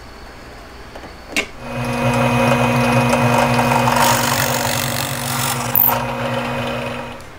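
Drill press motor starting after a click and running with a steady hum, as a twist bit bores into a wooden strip, adding a rush of cutting noise about four seconds in. The motor stops near the end.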